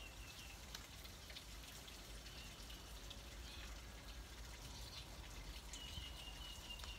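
Faint outdoor ambience: a low steady hiss with scattered small crackles, and a thin high trilling chirp at the start and again for about a second near the end.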